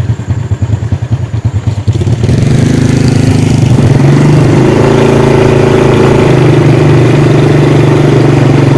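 A small engine putters unevenly at low speed. About two seconds in it opens up and then runs steadily at higher revs, its pitch climbing slightly.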